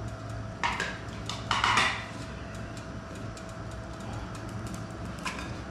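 Metal cooking pot clattering twice as it is handled over a small wood-burning camp stove, with faint crackling clicks from the fire.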